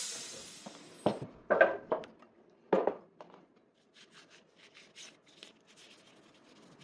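Background music fading out, then a few short knocks and clinks, about four in the first three seconds, followed by faint light ticking.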